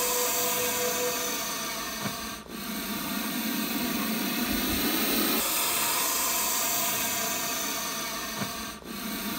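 Puff adder hissing: a loud, long, steady hiss that fades out briefly twice, about two and a half seconds in and near the end. It is the snake's defensive warning when threatened.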